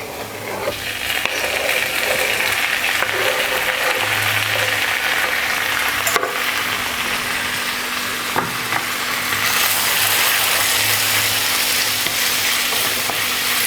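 Chopped tomatoes frying in hot oil with sautéed onions and ginger-garlic paste in a kadai: a steady sizzle that builds in the first second and holds, with a couple of sharp clicks.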